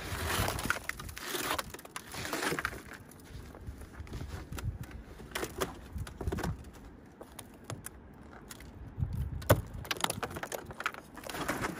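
Icicles and crusted ice being snapped and knocked off a truck camper by gloved hands: crunching and scraping in the first few seconds, then a series of separate sharp snaps.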